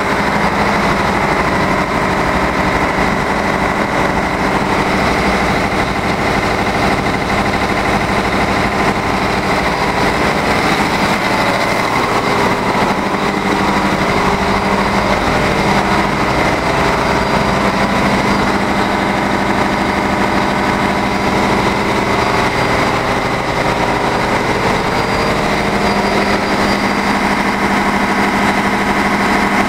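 Steady, loud din of a cargo ship's engine room: diesel machinery, led by a MaK 6M32C six-cylinder four-stroke medium-speed main engine, running without change. Constant hum with a high whine over it.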